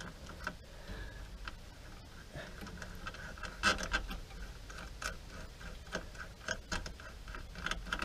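Small metallic clicks and scrapes of a new throttle cable being hooked back onto a golf cart's accelerator pedal linkage and return spring, with one sharper click a little before the middle. A faint, even ticking of about three or four a second runs under it from about the middle on.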